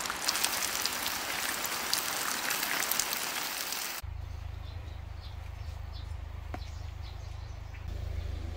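Rain pattering, a dense crackle of drops. About four seconds in it cuts off suddenly to a low steady hum with a few faint chirps.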